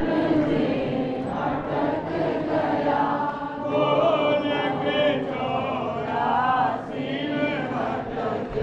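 Many voices singing a Hindu devotional chant together: a congregation's kirtan.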